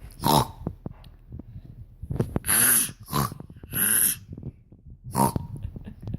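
A dog making a run of short, breathy blasts through its nose and mouth, about six in a few seconds, with soft clicks in between.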